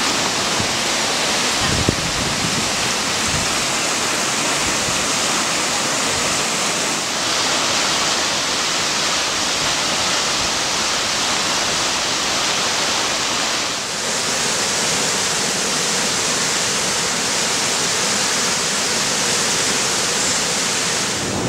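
A river in flood: fast, muddy floodwater rushing past in a loud, steady rush of water, briefly dipping where the shot changes, about 2, 7 and 14 seconds in.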